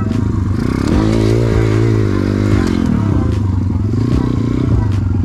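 Pit bike engine running on a rough trail. From about a second in it revs up for a couple of seconds, then drops back, with scattered knocks over the ground.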